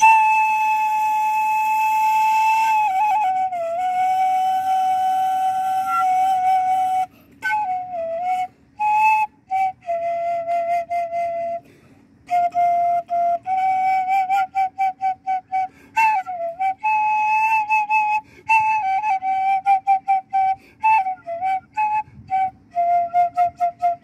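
A sogeum, a small Korean transverse bamboo flute, plays a slow melody. It opens with a long held note that slides down and holds again, then moves through shorter notes with slides and wavering pitch, broken by brief breath pauses.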